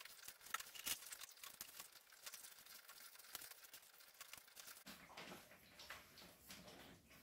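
Faint, irregular snips of scissors cutting a paper template. From about five seconds in, the paper pieces rustle as they are handled and set down.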